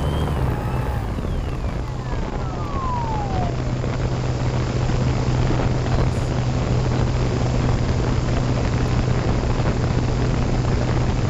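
Electric RC plane's brushless motor and propeller running steadily, with a low hum and a rushing noise throughout. Near the start a high whine falls steadily in pitch over about two seconds.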